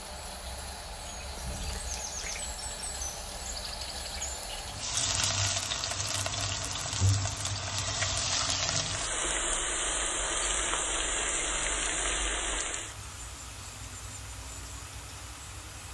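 Loud cooking hiss, like food sizzling in hot oil or steam escaping. It starts suddenly about five seconds in and stops about thirteen seconds in, over a faint steady background hiss.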